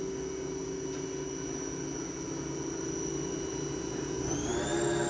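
Spindle of a 2004 Daewoo DMV-3016 CNC vertical machining center running at 5,000 RPM with a steady high-pitched whine. A little over four seconds in, the pitch rises as the spindle speeds up toward 7,000 RPM.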